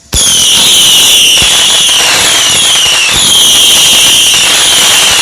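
Ground firework going off: it starts suddenly into a loud continuous hiss, with high whistles that fall in pitch over about a second and a half and repeat, and a few sharp pops.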